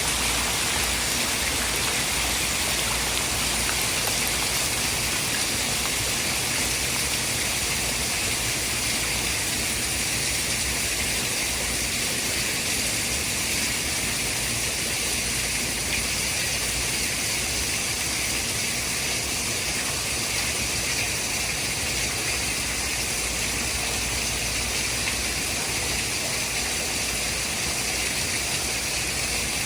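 Steady natural white noise of water, like heavy rain or rushing water: an even, unbroken hiss, strongest in the upper range, with no separate drops or events.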